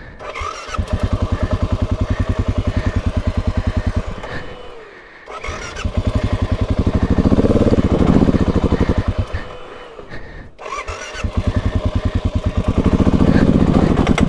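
Dual-sport motorcycle engine running at low revs, its firing pulses plainly separate, and revving up twice, in three short segments joined by abrupt cuts.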